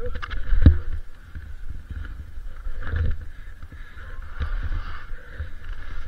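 Skis sliding and turning through snow, with wind buffeting the microphone as a low rumble and a couple of thumps, about a second in and again near the middle.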